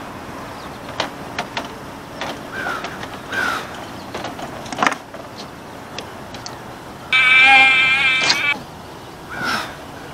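A flying insect buzzing close to the microphone for about a second and a half, about seven seconds in, starting and stopping abruptly. Scattered light clicks and a few short chirps come before and after it.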